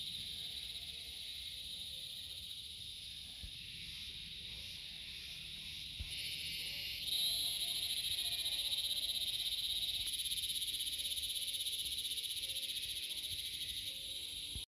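Dense chorus of calling frogs and insects: a steady, finely pulsing high-pitched trill that grows louder about seven seconds in and cuts off suddenly at the end.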